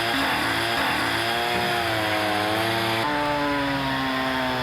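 Chainsaw running under load as it cuts into a poplar log for carving, its pitch wavering as the revs rise and fall, with a shift in the sound about three seconds in.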